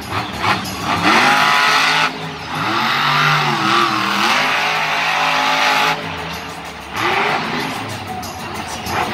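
Monster truck's supercharged V8 revving hard in repeated bursts, its pitch rising and falling as the truck spins and powers through the dirt.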